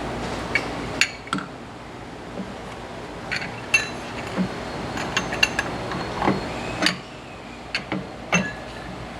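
Irregular metallic clinks and knocks, some with a short ring, as a filling-machine cylinder is slid on and fitted into place.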